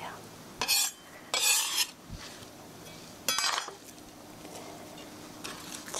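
Utensil scraping and clinking against a dish as chopped vegetables are scooped into it: three short scrapes in the first four seconds.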